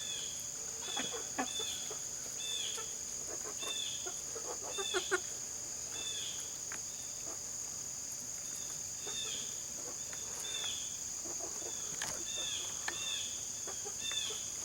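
Steady high insect drone, typical of crickets, with short falling bird chirps repeating about once a second and a few brief clucks from chickens.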